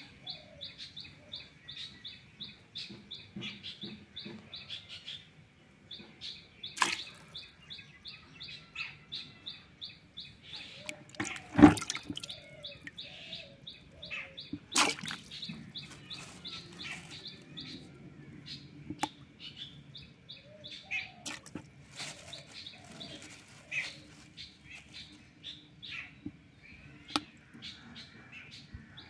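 Tap water running and splashing as a bunch of green grapes is rinsed over a plastic basin, with a few knocks, the loudest about twelve seconds in. Behind it a bird repeats a short high chirp about five times a second, pausing briefly near five seconds in and thinning out in the second half.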